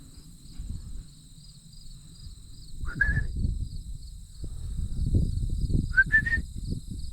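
Insects trilling steadily with a fast pulsing chirp, over low wind rumble on the microphone. A short rising chirp sounds about three seconds in, and three more in quick succession near the end.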